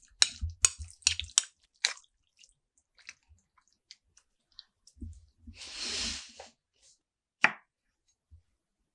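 Metal spoon mashing set jelly in a ceramic bowl: several quick clicks of the spoon against the bowl in the first two seconds, then soft squelches, with a longer wet squish about six seconds in. A single sharp knock comes near the end.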